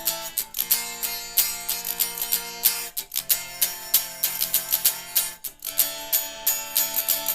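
Guitar strumming chords in a steady rhythm, moving to a new chord roughly every two and a half seconds, with no singing.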